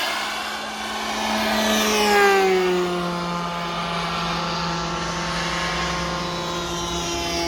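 The small jet turbine of a radio-controlled Freewing Su-35 model, rated at 4.5 kg of thrust, whining in flight. Its pitch drops as it passes about two seconds in, then it runs at a steady whine.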